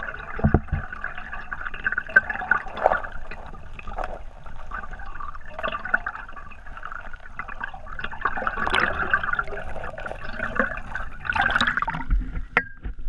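Stream current heard underwater through a GoPro's waterproof housing: a steady muffled, crackly rush of water with gurgles and small ticks. Near the end a louder splashy burst comes as the camera breaks the surface.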